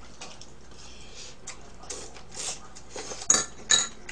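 Chopsticks clicking and clinking against bowls and dishes while eating, a few light taps with two sharper clinks about three and a half seconds in.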